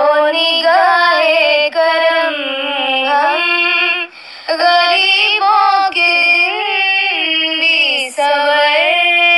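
A high female voice singing a slow, gliding melody in long held phrases, with short breaks near two, four and eight seconds in.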